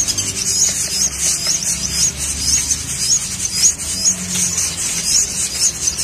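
Nestling birds begging: short high rising chirps repeating about twice a second over a raspy hiss.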